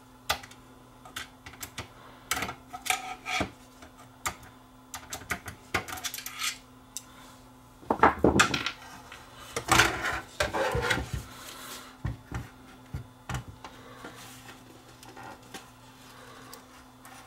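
Scattered clicks, knocks and rubbing as the sheet-metal and plastic parts of an HD DVD player are handled and its optical disc drive is worked loose and lifted out of the chassis. The loudest clatter comes about eight and ten seconds in.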